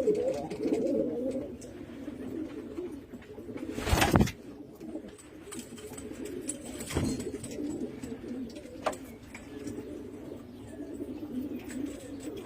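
Domestic pigeons cooing continuously, several birds overlapping. A loud brief rustle or knock comes about four seconds in, and a softer one near seven seconds.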